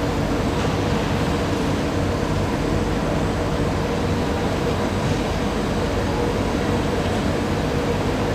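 Steady hum and air-handling noise from a Singapore MRT train standing at a station platform with its doors open, with no announcement or chime.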